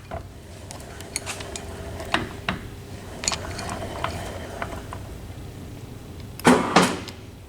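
Clamping and unclamping mechanism on the arm and column of a 1979 OOYA RE3-2500 radial arm drill working, giving scattered metallic clicks and clanks over the steady hum of the running machine, with a louder burst of clanking about six and a half seconds in.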